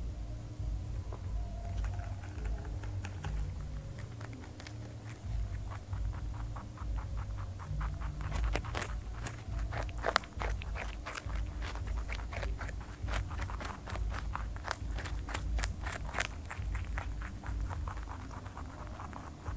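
Rabbit crunching raw carrot: a quick run of short crisp crunches, sparse at first and dense from about eight seconds in, over a steady low hum.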